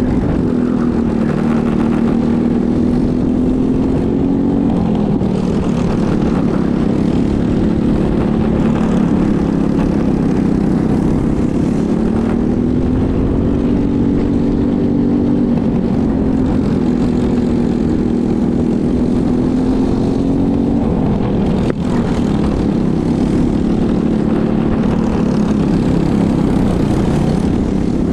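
Go-kart engine heard on board at racing speed, its pitch rising and falling over and over as the throttle is opened and closed. There is a brief sharp drop in the engine note about three quarters of the way through.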